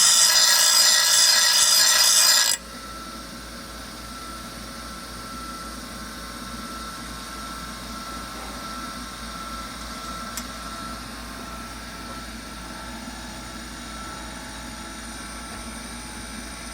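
Bench grinder wheel grinding the edge of a steel lawn mower blade: a loud, harsh grind that stops suddenly about two and a half seconds in. The grinder then runs on unloaded with a steady whine, and a single light click comes near the middle.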